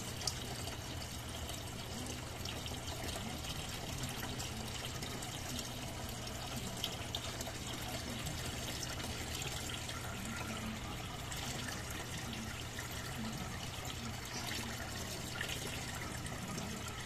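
Water trickling steadily in a turtle tank over a low steady hum, with a few faint clicks.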